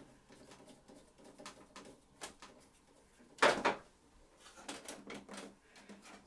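Hand screwdriver driving a screw into a printer's metal frame to hold an earth cable: faint ticks and scrapes, with a louder knock and rustle about three and a half seconds in.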